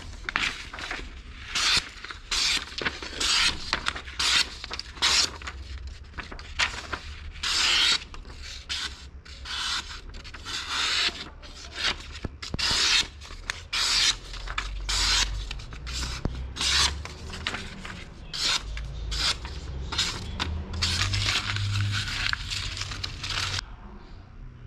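Sheets of paper being sliced by a hand-forged san mai recurve bowie knife's edge, in a quick run of short, crisp slicing hisses, one or two a second, stopping shortly before the end: a paper-cutting test of the edge's sharpness.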